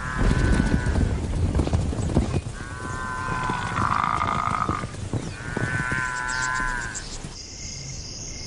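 Hooves of a running wildebeest herd drumming on dry ground, with three drawn-out animal calls over them. Near the end the running stops and crickets begin chirping.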